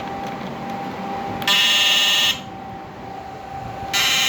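A high-power inverter electric fishing machine buzzing loudly twice, in bursts of under a second, as its output is switched up to the high setting, over a faint steady whine from the inverter.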